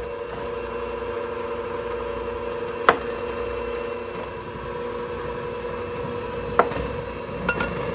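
Electric hand mixer running steadily, its beaters working peanut butter, butter and powdered sugar in a glass bowl. Two sharp clicks come about three seconds in and again near six and a half seconds.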